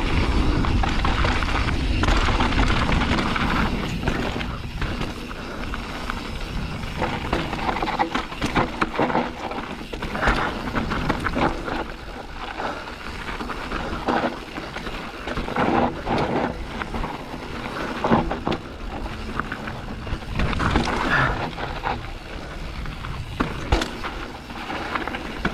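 Mountain bike riding down dry, dusty dirt singletrack: continuous tyre noise on loose dirt, with frequent knocks and rattles from the bike over bumps and roots.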